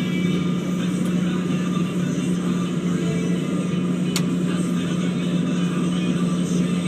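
Excavator's diesel engine running steadily under load, with a steady hum and faint whine, and a single sharp click about four seconds in.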